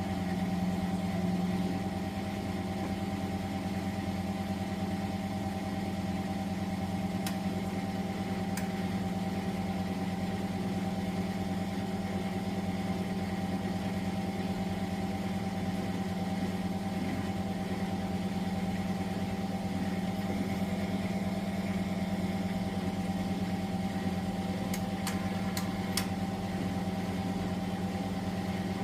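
Miele De Luxe W423 washing machine running with a steady motor hum, with a few faint clicks about a quarter of the way in and again near the end.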